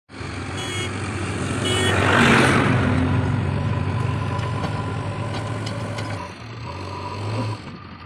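JCB 3DX backhoe loader's diesel engine running steadily as the machine drives and turns, swelling louder for a moment about two seconds in. Two short beeps sound in the first two seconds.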